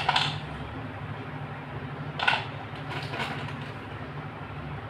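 Slate pencil pieces clattering briefly on a plastic plate, then small cardboard slate pencil boxes picked up and handled, giving a sharp click about two seconds in and a few faint taps after it. A steady low hum runs underneath.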